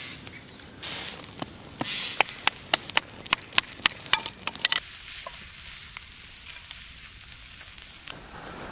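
Swedish torch fire crackling with a quick run of sharp, irregular pops. About five seconds in this gives way to a steady high sizzle.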